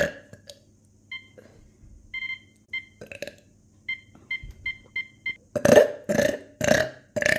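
Microwave oven keypad beeping, about ten short high beeps as buttons are pressed. After that, four loud burps in quick succession near the end.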